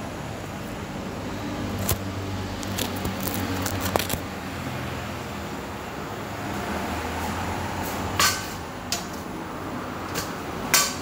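Steady background hiss of a kitchen with a gas burner under an iron griddle, broken by a few sharp clicks and clinks of utensils; the loudest clatter comes near the end as the cooked pancake is lifted off the griddle.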